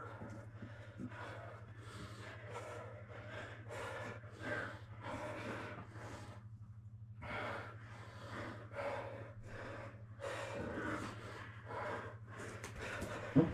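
Heavy, rhythmic breathing and gasping from grapplers, about two breaths a second, pausing for a moment near the middle. A steady low hum runs underneath, and a brief sharp sound stands out near the end.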